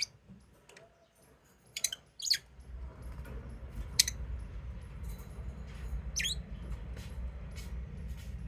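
Lovebirds giving short, sharp, high-pitched chirps every second or so, one of them sweeping down in pitch about six seconds in. A steady low rumble comes in about two and a half seconds in.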